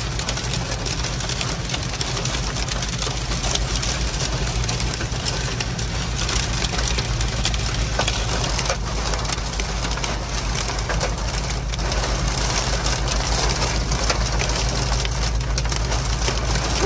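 Heavy rain hitting the roof and windshield of a moving car, heard from inside the cabin: a dense, steady hiss full of small hits over the low rumble of tyres and engine.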